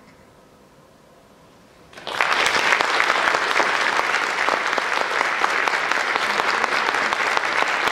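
The last of a string orchestra's final chord dies away into a short hush, then audience applause breaks out about two seconds in and carries on steadily.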